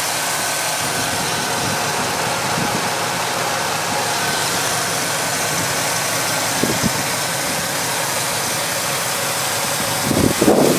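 Chevrolet Silverado's 4.3-litre V6 engine idling steadily, heard close up under the open hood. A brief louder noise comes near the end.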